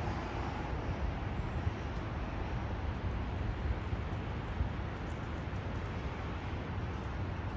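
Tram running: a steady low rumble.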